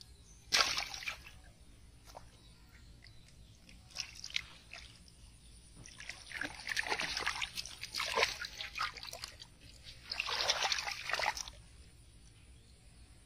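Shallow muddy water splashing and sloshing in bursts as hands grab at a carp in it, with the longest stretch of splashing about halfway through.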